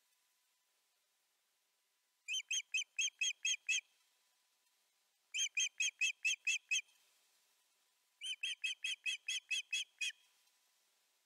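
Osprey giving alarm calls: three quick series of sharp, high whistled notes, about eight to eleven notes per series. This is an alarm at a predator sensed near the nest.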